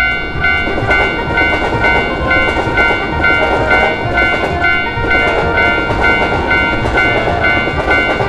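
Japanese railroad crossing bell ringing in a steady kan-kan rhythm, about two strokes a second, over the rumble and clickety-clack of a passing train.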